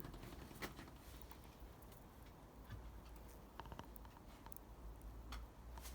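Near silence: a faint low hum with scattered soft clicks.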